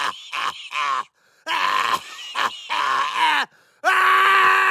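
A man's voice making a string of exaggerated groans and moans, each sliding down in pitch. About four seconds in, a steady held tone starts and continues.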